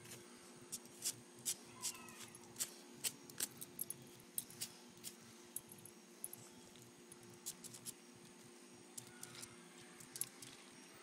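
Light metallic clicking and jingling of a dog's collar tags and leash clip as the dog moves its head, in irregular sharp clicks a few a second that thin out near the end.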